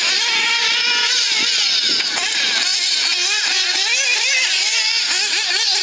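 Two nitro RC buggies' small glow-fuel engines racing, their pitch rising and falling constantly as the throttle is worked.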